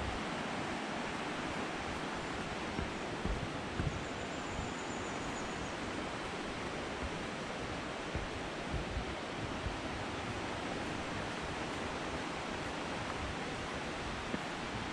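Steady, even rushing of flowing water, with a few soft low thumps.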